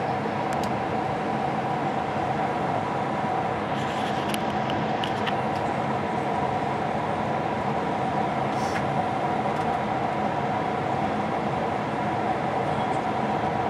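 Steady cabin noise of a Boeing 777-300ER airliner in flight: engine and airflow noise making an even hum, with a few faint clicks about four to five seconds in.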